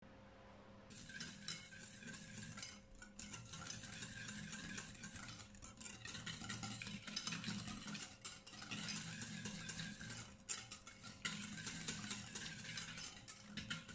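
Wire balloon whisk beating an egg yolk into a liquid cheesecake batter in a bowl: fast, continuous whisking with the wires brushing and now and then tapping the bowl, starting about a second in.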